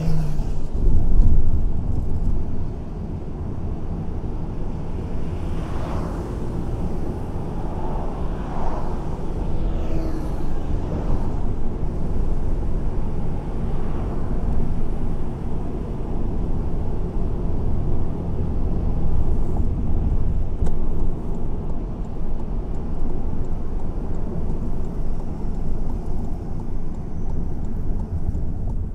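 Car driving through city traffic: a steady low rumble of road and engine noise, with some fainter passing sounds between about six and eleven seconds in.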